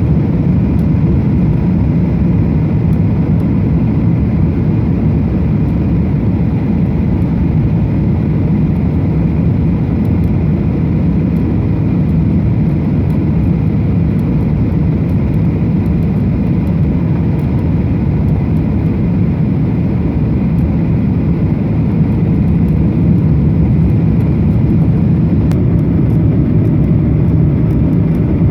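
Steady cabin noise inside a Qantas Boeing 737-800 in flight: a low, even drone of the engines and rushing air.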